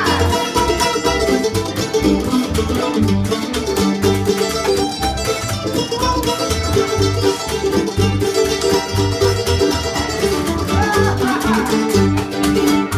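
Acoustic string band playing live without singing: upright bass plucking a steady beat under strummed acoustic guitar and other plucked strings.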